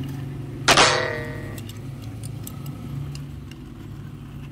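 An AA battery snapping into a toy train's battery box about a second in: one sharp click with a brief metallic ring. A low hum runs underneath.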